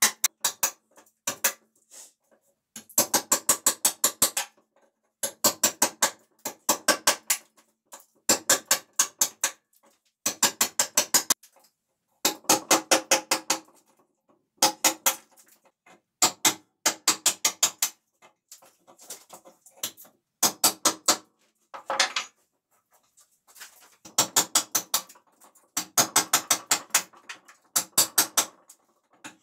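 A hammer tapping a chisel to strip the bark off the edge of a dried ash slab, in quick runs of sharp taps with short pauses between.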